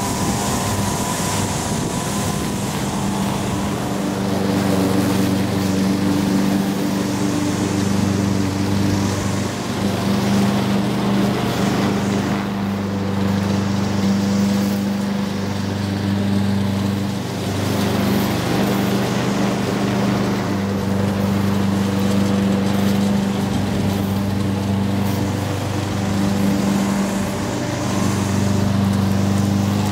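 Troy-Bilt TB360 walk-behind gas lawn mower running steadily while cutting grass, its engine hum rising and falling a little in level as it moves back and forth across the lawn.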